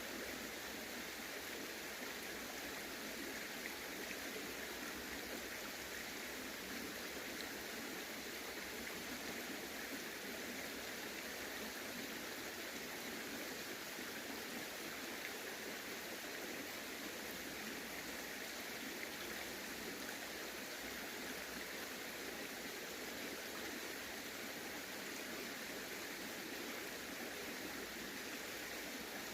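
Water of a small stream running steadily, an even rushing with no breaks.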